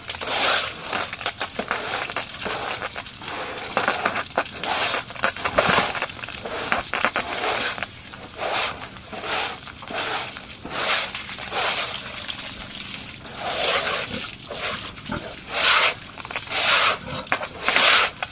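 Pigs squealing and grunting: harsh, noisy calls about once a second, some overlapping.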